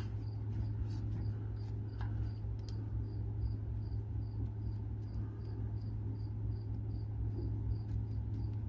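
An insect chirping steadily in short high chirps, nearly three a second, over a steady low hum, with a couple of faint clicks.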